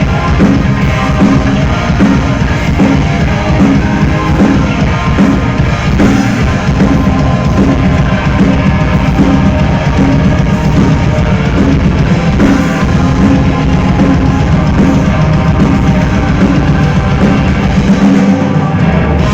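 A heavy metal band playing loudly, a drum kit driving a steady beat under dense guitar and bass; the lowest bass drops out briefly near the end.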